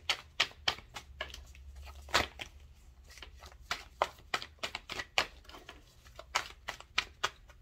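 Tarot deck being shuffled by hand, the cards giving a run of sharp, irregular clicks as they are cut and slipped together, the loudest about two seconds in.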